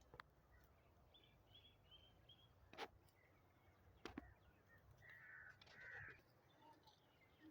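Faint outdoor background with a few short high chirps and two sharp clicks.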